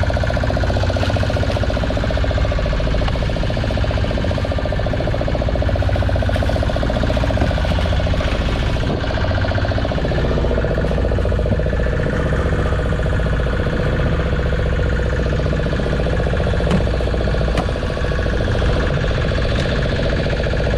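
Small fishing boat's engine running steadily at an even speed.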